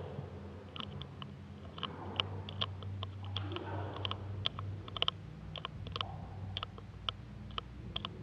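Irregular light clicks, a few each second, over a steady low hum.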